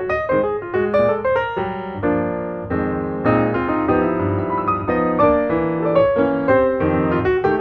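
Background piano music: a melody of quick notes over held chords.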